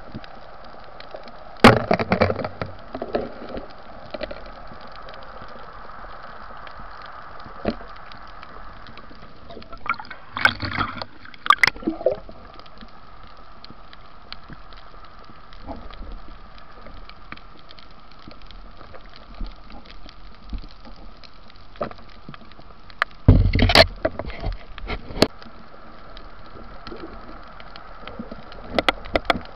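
Underwater sound: a steady watery hiss with gurgling. Clusters of knocks and clatter from the diver's gear come a couple of seconds in, about a third of the way through, after about two-thirds, and at the end.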